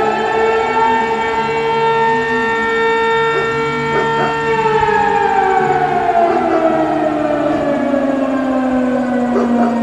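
A siren sounding loudly, holding one steady pitch for about five seconds, then slowly winding down and still sounding at a lower pitch near the end.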